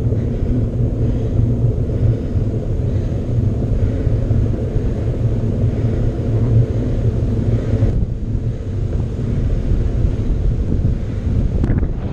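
Wind buffeting the microphone while a mountain bike is ridden: a steady low rumble.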